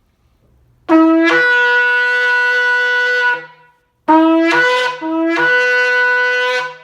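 A natural-finish 43-inch shofar blown in two long blasts, each starting on a low note and jumping up to a higher held note; the second blast breaks briefly before it settles.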